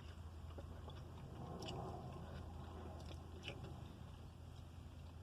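A person chewing a mouthful of pot roast, with a few faint mouth smacks, over a steady low hum.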